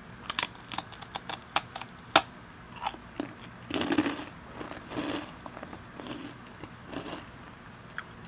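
Close-miked crunching as a thin sugar-glazed cracker is bitten and chewed, picked up by a clip-on lavalier microphone. A quick run of sharp crisp cracks comes in the first two seconds, the loudest about two seconds in, followed by softer, wetter chewing.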